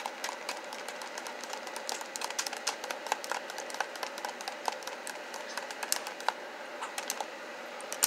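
Two colored pencils drummed rapidly on a paper journal page lying on a wooden floor: quick, irregular tapping clicks.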